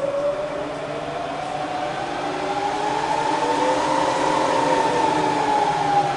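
Bridgeport vari-speed milling machine head running in reverse in low range, its whine rising in pitch and then easing back down as the spindle speed is changed. It runs smoothly and is just as quiet as in forward.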